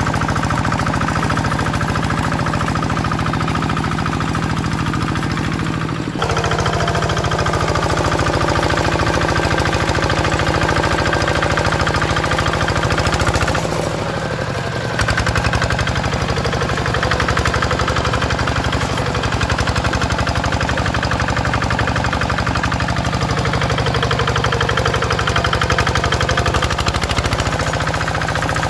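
Kubota RD 65 single-cylinder engine of a two-wheel hand tractor running steadily under load, a rapid, even knocking beat, while its cage wheels and tiller work a waterlogged paddy. The sound shifts abruptly twice, about a fifth of the way in and near the middle.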